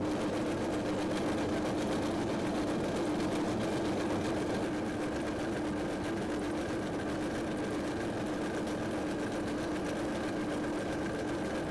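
Small metal lathe running steadily at speed, a steady motor hum with a whine over it, while sandpaper and then steel wool are held against the spinning steel ball-end handle to polish it.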